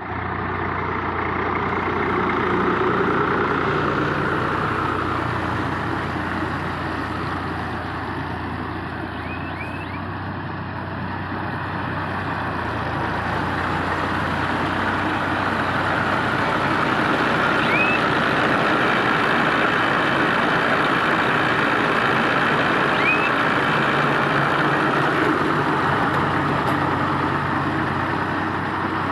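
Tractor engine running steadily while powering a baler, the machinery noise swelling and easing slowly.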